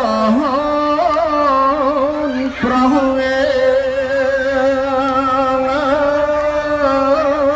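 A male voice performing Khmer smot, the Buddhist chanted recitation, into a microphone: long held notes with wavering ornaments between them and a short breath about two and a half seconds in.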